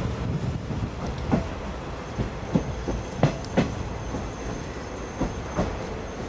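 Wheels of a 50-series passenger coach clicking over rail joints, heard from inside the coach: sharp knocks, often in close pairs, every second or so over a steady running rumble.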